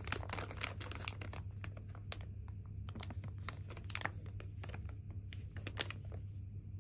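Thin plastic bag of sliced apples crinkling as it is gripped and turned over in the hand. A dense run of crackles comes in the first second, then scattered crinkles, over a steady low hum.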